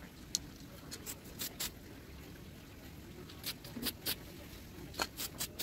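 Aerosol spray-paint can sprayed in short bursts onto a bicycle frame, about a dozen brief hisses in clusters, with a few grouped near the end.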